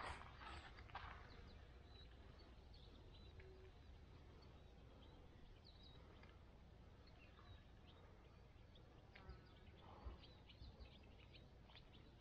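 Near silence: faint outdoor ambience with scattered, faint, short bird chirps and a few soft clicks in the first second.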